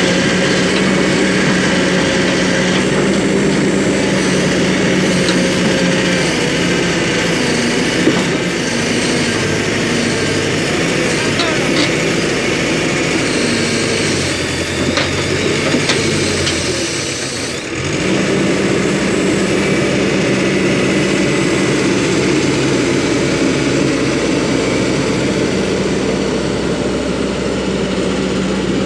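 Kobelco SK200-8 excavator's diesel engine running under load as the machine climbs on its tracks up a ramp onto a self-loader truck bed. The sound is loud and steady, dipping briefly about two-thirds of the way through.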